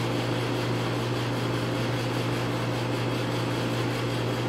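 Steady low machine hum of commercial kitchen equipment running, unchanging throughout.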